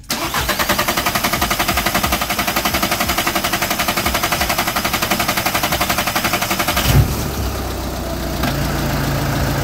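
VW Jetta Sportwagen TDI's 2.0-litre four-cylinder turbodiesel being cranked on the starter in a fast, even rhythm for about seven seconds. It then fires and settles into a rough idle. The long crank comes from air in the fuel system, because the new fuel filter was not pre-filled with fuel.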